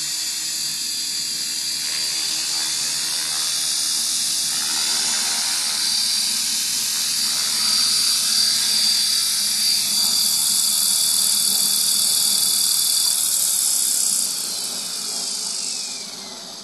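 Align T-Rex radio-controlled helicopter's motor and rotor whining at a steady high pitch. The whine grows louder around the middle, then falls in pitch and fades from about fourteen seconds in as the rotor spools down.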